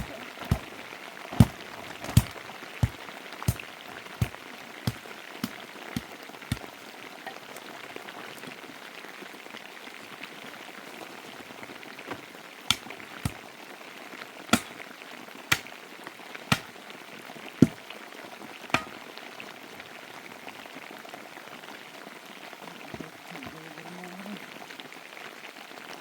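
Steady rain, with a run of sharp knocks about every 0.7 s over the first several seconds and a few more scattered knocks in the middle.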